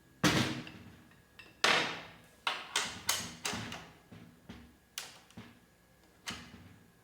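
Snare drum with a new head being struck and left to ring during tuning: two firm hits in the first two seconds, then a run of lighter taps and a couple of single hits, each decaying quickly. The player is checking the pitch between turns of the tension rods as the head is brought up.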